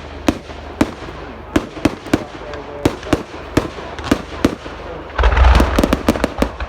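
Fireworks going off: irregular sharp bangs, about two a second. About five seconds in comes a louder, denser volley of rapid bangs and crackling over a deep rumble.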